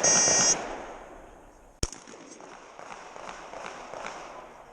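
A competition shot timer's buzzer sounds briefly as the stage starts. About a second and a half later a shotgun fires a single shot.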